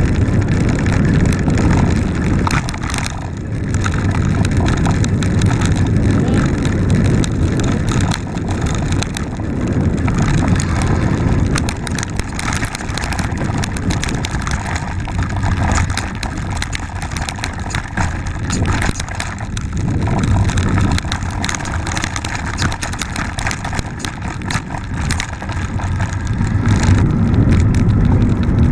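Mountain bike riding over a dirt forest trail, its knobby tyres rumbling on the ground and the bike rattling over bumps, with wind buffeting the microphone of the handlebar-mounted camera.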